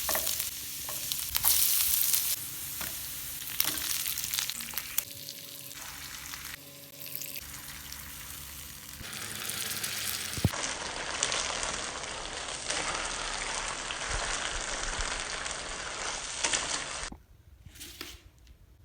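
Chilli chicken frying and sizzling, with scattered sharp clicks of a utensil stirring it. The sizzle changes abruptly a few times and drops to a much lower level near the end.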